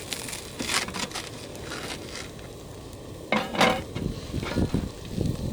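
A metal utensil clinking and scraping against a pan while a grilled cheese sandwich is cut, with a sharp clatter about three and a half seconds in and low knocks after it.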